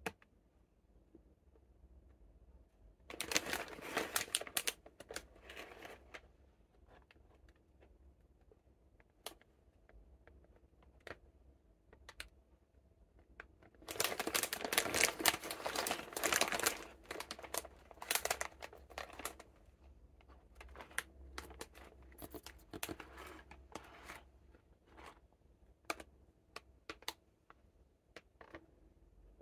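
Plastic wrapper of a cookie multi-pack crinkling and crackling as it is handled and turned. There are two louder spells, one a few seconds in and one around the middle, with soft scattered rustles and clicks between them.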